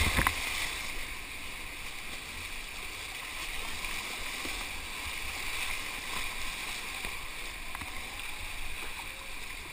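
Whitewater river rapids rushing steadily around a kayak, opening with a wave splashing over the camera.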